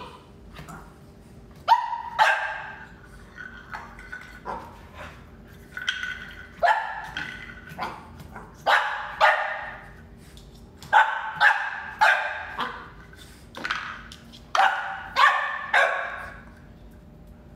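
Boxer puppy play-barking: short, fairly high barks, singly and in quick runs of two or three, about a dozen in all, stopping shortly before the end.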